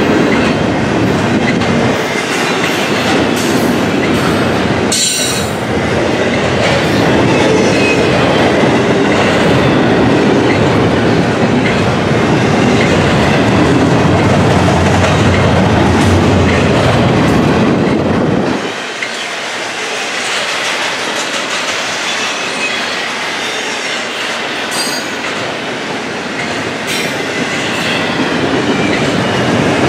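Double-stack intermodal container cars rolling past: the steady, loud noise of steel wheels on rail, with brief high-pitched wheel squeals about five seconds in and again near twenty-five seconds. The deep rumble falls away about two-thirds of the way through.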